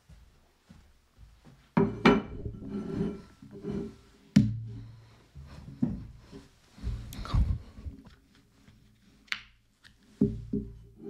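Irregular knocks, thuds and rubbing as a person settles at a wooden desk, sets down a ketchup squeeze bottle and a bowl, and handles the bottle. Background music plays underneath.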